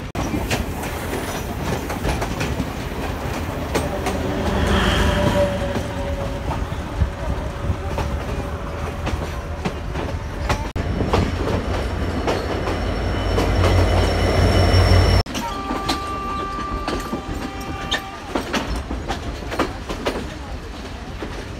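Passenger train running on jointed track, heard from aboard: steady rumble with the clickety-clack of wheels over rail joints. The sound cuts off abruptly twice, and after the second cut a steady high tone sounds for about two and a half seconds.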